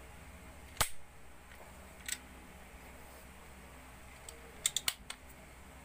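Sharp mechanical clicks from a homemade 12-gauge shotgun being handled: one loud click about a second in, another near two seconds, and a quick run of three or four near the end.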